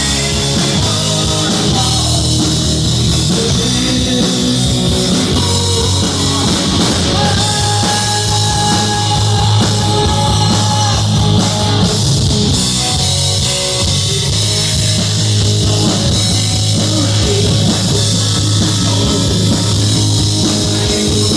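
Rock music: a band playing with drum kit, guitar and singing, loud and steady throughout.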